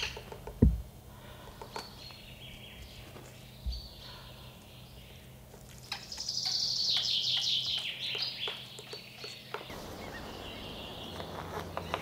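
Small birds singing in woodland, with a long phrase falling in pitch about six seconds in, and a low thump just under a second in. Near the end a quick, even series of sharp taps begins, about five a second: a white-backed woodpecker pecking at the trunk.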